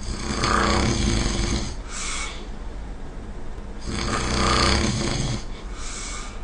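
A person snoring loudly: two long, rasping snores about four seconds apart, each followed by a short breathy hiss.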